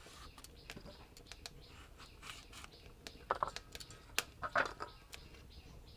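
Knife cutting papaya: a run of light, quick taps, with a few louder strokes a little past halfway.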